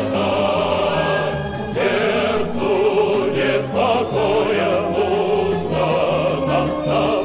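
Background music: a song with choir-like voices over a steady bass accompaniment.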